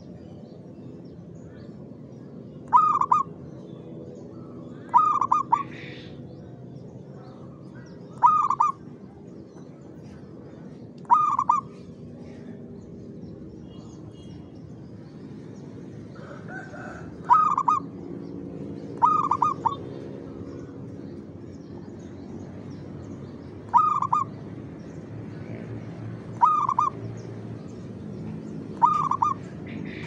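Caged zebra dove (perkutut) cooing: nine short calls, each a quick run of a few soft notes, repeated every two to six seconds over a steady faint background noise.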